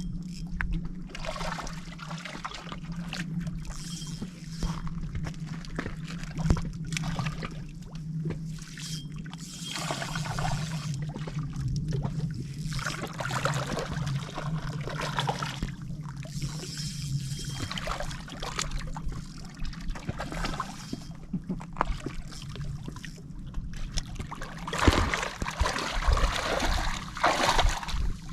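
Water sloshing and trickling in uneven surges over a steady low hum, growing louder near the end.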